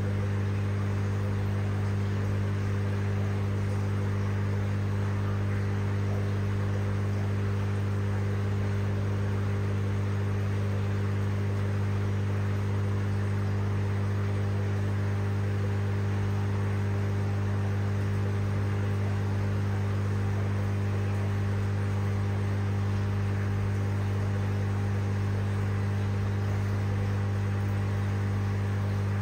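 Steady low electrical hum of aquarium filtration pumps, with a soft even hiss above it.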